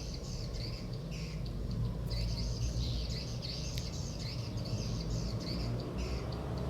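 Small birds chirping in quick, repeated high calls, with a few short gaps, over a low steady hum.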